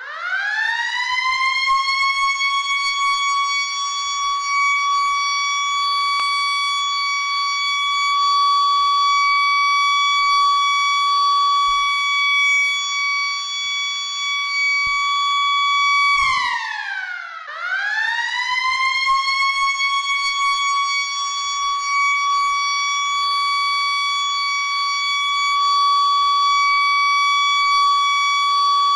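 School bell siren sounding: its tone winds up to a steady high wail and holds. About halfway through it drops away briefly, then winds back up to the same pitch and holds again.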